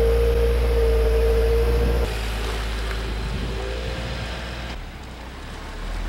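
Music with a steady held tone and heavy bass that cuts off abruptly about two seconds in. Then a 2015 Subaru WRX's turbocharged flat-four engine and tyres as the car approaches along the street, growing louder near the end.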